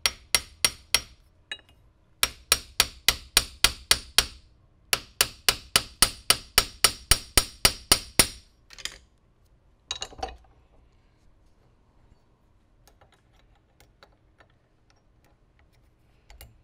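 Quick light hammer blows on steel: a small hammer peening the frame rails of a 1911 pistol clamped in a vise to take the slop out of the slide fit. The blows come in three runs of about five a second, then two single strikes about nine and ten seconds in, followed by a few faint clicks.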